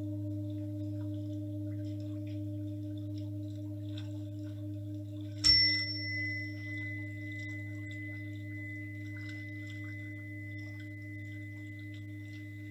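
Meditation music: a steady, low drone of held tones. About five seconds in, a bright metal chime is struck once, and its high ring carries on long after the strike.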